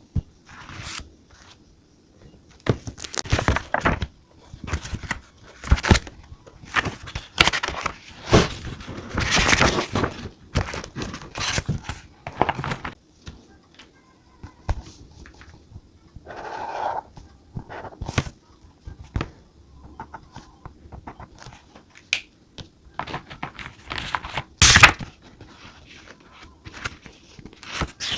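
Paper and stationery being handled at a desk: irregular rustling of paper and light knocks of small items being set down, with one sharp knock a few seconds before the end.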